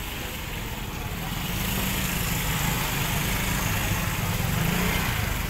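Small motorcycle engine running at low speed close by, getting louder about a second and a half in.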